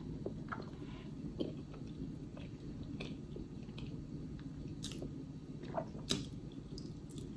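Quiet chewing and mouth sounds of a person eating a boiled egg. Several sharper clicks about five to six seconds in come from handling snow crab legs.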